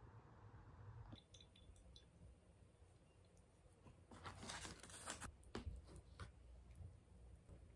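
Mostly near silence, with a short rustle of a pizza slice being pulled up from the pie about four seconds in, and a few faint clicks of handling.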